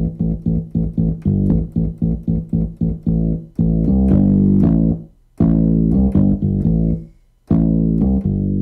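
Intro music on plucked guitar and bass: a run of quick repeated notes, about four a second, then long held chords broken by short pauses.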